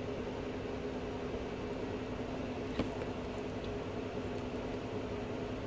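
Steady hum of a running room appliance, with a single light knock about halfway through.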